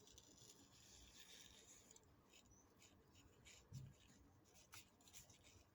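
Faint rustling and light rubbing of cardstock as a folded paper card is handled and opened, with a few short scrapes and a soft thump.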